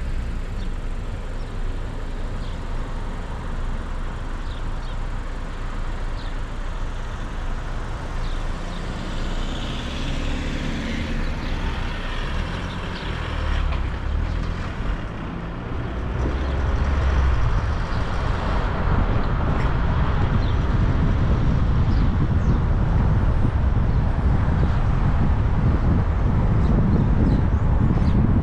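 Car driving on a road: steady engine and tyre rumble that grows louder about two-thirds of the way through.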